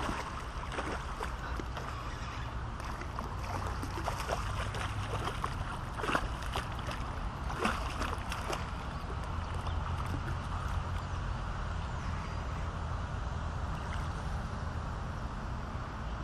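A hooked traíra (trahira) thrashing and splashing at the water's surface as it is played in to the bank, with a few sharp splashes in the middle, over a steady rumble of wind on the microphone.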